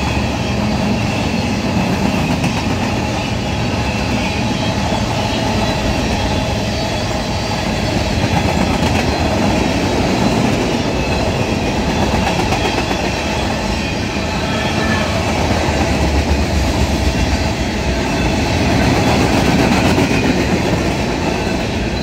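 Freight cars of a passing CSX freight train rolling by at track speed: a loud, steady rumble of steel wheels on the rails that keeps going throughout.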